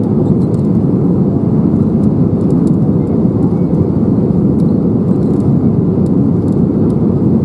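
Steady cabin rumble of an Airbus A320neo in flight, heard from a window seat over the wing: airflow and the Pratt & Whitney PW1127G geared turbofan engines during the descent to land.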